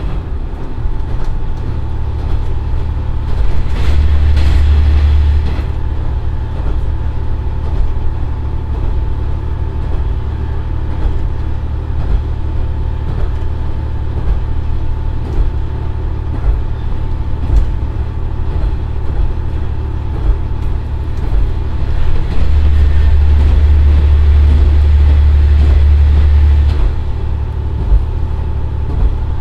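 Inside a JR Shikoku 1500 series diesel railcar cruising at about 80 km/h: the steady running drone of its Komatsu SA6D140HE-2 diesel engine and its wheels on the rails, with a steady high whine and occasional sharp knocks. The drone swells louder for a couple of seconds about four seconds in, and again for about four seconds in the last third.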